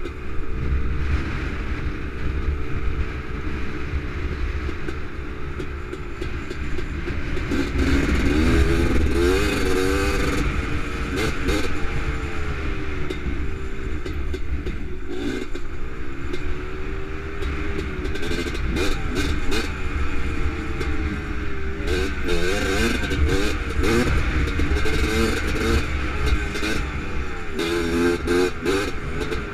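Honda TRX250R quad's two-stroke single-cylinder engine under way on a dirt trail: it holds steady, then revs up and drops back in several surges, with a low rumble underneath and short bits of clatter.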